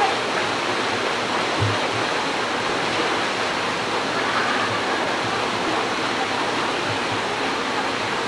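Water pouring down a rock-lined water-slide chute and splashing into the pool below: a steady rush of falling water.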